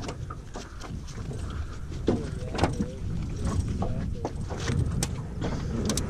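Scattered knocks and rustling from handling in an aluminum jon boat as a gloved hand reaches for a hooked northern pike, over a steady low rumble.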